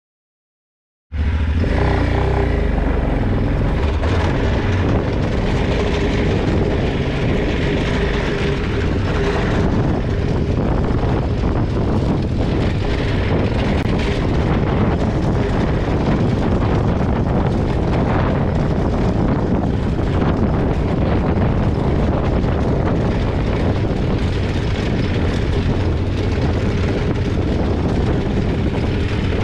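Motorcycle engine running steadily while riding, with a deep wind rumble on the helmet-mounted microphone; it cuts in abruptly about a second in.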